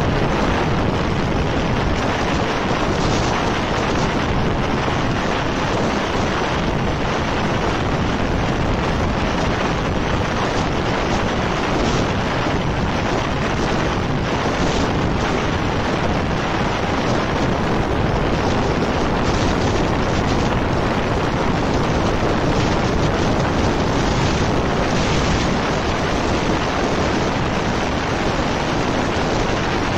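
Steady rushing wind and road noise on a roof-mounted camera of a vehicle driving at speed, wind buffeting the microphone.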